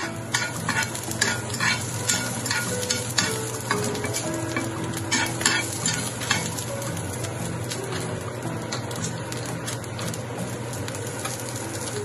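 Chopped preserved mustard tuber (zha cai) sizzling in a hot nonstick frying pan while a utensil stirs and scrapes it around, with many quick clicks of the utensil against the pan. The scraping thins out in the second half, leaving mostly the sizzle as the pan cools off the heat.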